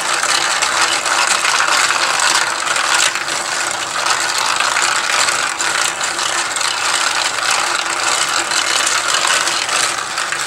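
Continuous rattling and clicking of a 3D-printed plastic marble maze as its top knob is turned, with small metal balls rolling and clattering along the plastic tracks.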